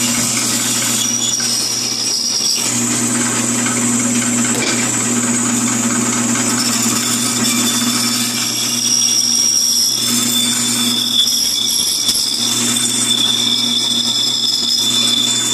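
Bandsaw running and cutting a curved shape out of a 2x4, a steady motor hum with a high-pitched whine.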